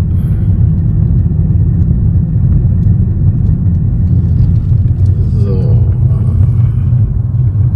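Steady low rumble of a car driving slowly. A faint voice is heard briefly about two-thirds of the way in.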